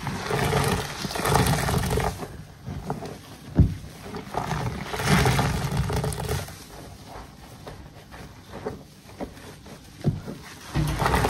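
Soapy foam body sponge squeezed and wrung by hand over a basin of sudsy water: wet squelching and water pouring back into the basin. It comes in three spells, at the start, around the middle and near the end, with a quieter stretch before the last.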